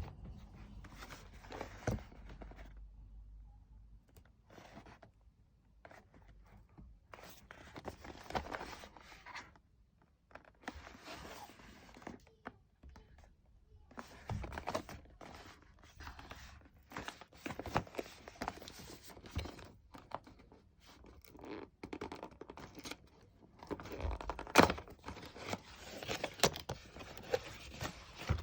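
Packaging being handled and opened by hand: irregular scraping, tearing and rustling with scattered clicks and knocks, the loudest knock about three-quarters of the way through.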